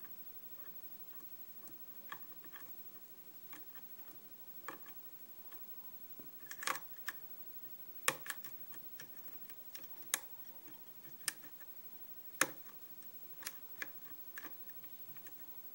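Scattered light clicks and ticks of a pick working the pin stacks of a 5-pin Kwikset lock, with faint clicks as pins set and the plug turns slightly under tension.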